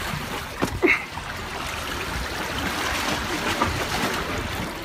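Seawater washing and trickling among the jetty's boulders, a steady splashing.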